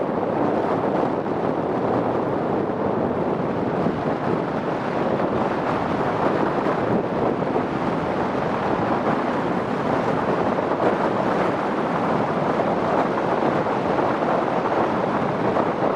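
Strong storm wind blowing across the microphone in a steady rush, mixed with heavy surf breaking on the beach.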